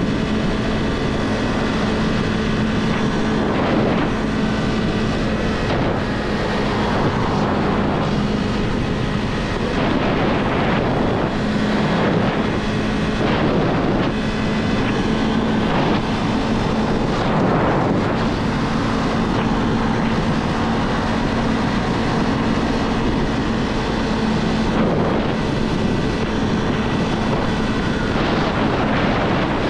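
Kawasaki 400 naked bike's engine running at a steady cruise, its even note briefly dropping out twice, under heavy wind rush over the camera microphone.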